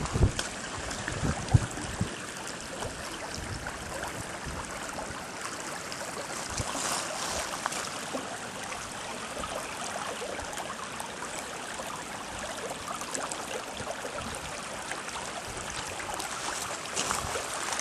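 A creek running high over rocks and gravel, a steady rushing and rippling of water. A single sharp knock about a second and a half in.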